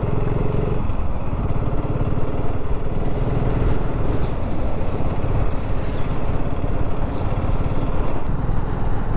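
BSA Gold Star 650's single-cylinder engine running steadily as the motorcycle rides along a town road.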